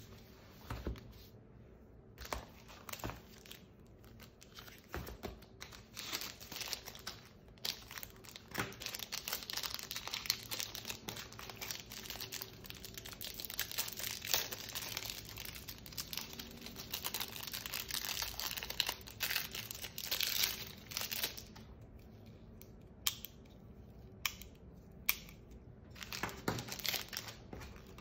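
Clear plastic packaging crinkling and rustling as items are unwrapped by hand, busiest through the middle. Near the end it settles into a few sharp clicks and taps.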